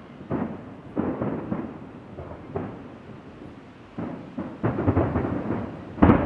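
Aerial fireworks shells bursting at a distance: about half a dozen booms, each trailing off in a rolling echo, the loudest one near the end.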